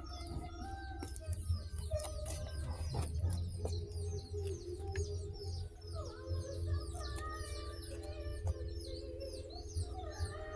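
Many small birds chirping rapidly and continuously, over background music with long held notes.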